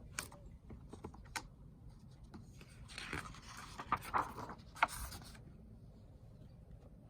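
Paper rustling with a few light clicks and taps: a book's page being handled and turned, the rustle lasting about two seconds from around the middle.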